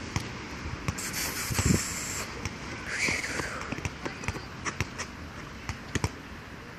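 Basketball being dribbled on a rubber court surface: a string of sharp bounces at an uneven pace, about one or two a second.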